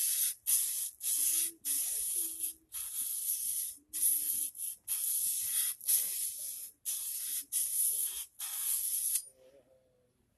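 Axe edge being stroked across 600-grit sandpaper for sharpening: a run of about fifteen short rasping hisses, a little under two a second, stopping about nine seconds in.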